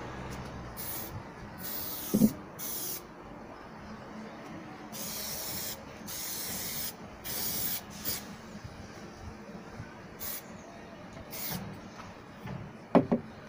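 Aerosol spray-adhesive can spraying glue in about nine short hissing bursts, the longest close to a second. A sharp knock about two seconds in, the loudest sound, and two more knocks near the end.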